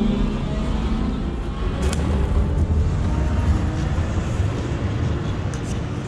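A vehicle under way: a steady low rumble with road noise, and a rising whine that fades in the first half second. A single sharp click about two seconds in, and a few faint clicks near the end.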